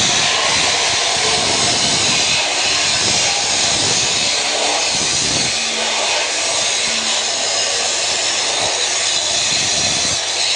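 Angle grinder cutting steadily, a loud even high-pitched hiss.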